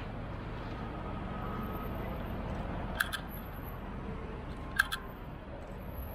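A city tram approaching along street track amid road traffic, a steady low rumble, with two sharp clicks, one about three seconds in and one near five seconds.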